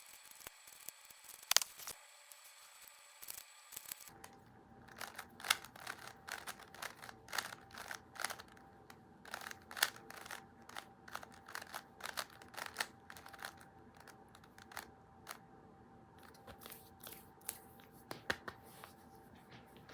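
A series of irregular small clicks and taps, some close together and some spaced out. A faint steady hum runs beneath them from about four seconds in.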